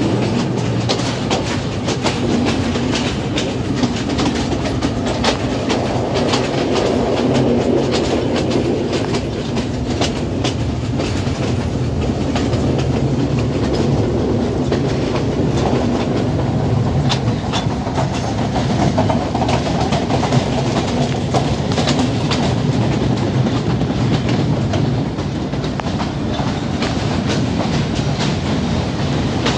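Passenger train carriage rolling along the track, with its wheels clattering over the rail joints in an irregular run of clicks over a steady rumble, as the express pulls into a station. Heard from an open carriage doorway.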